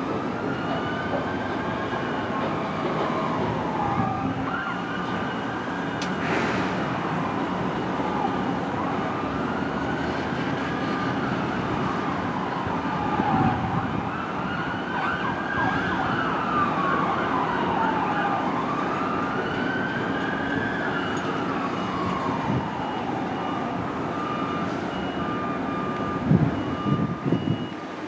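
Emergency vehicle siren wailing, its pitch rising and falling slowly and repeatedly, over steady background hum.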